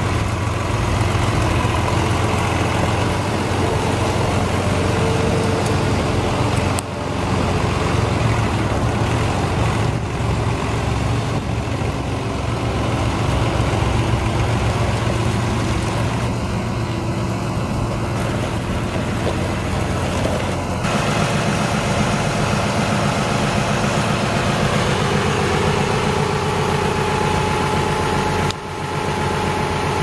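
International Harvester 886 tractor's six-cylinder diesel engine running steadily as the tractor is driven. The sound changes character and grows more tonal about two-thirds of the way through.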